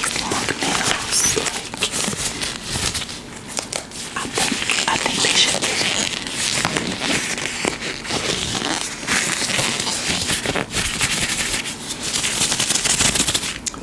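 Latex gloves rubbed and handled close to a sensitive microphone: continuous crinkling with many small, sharp crackles.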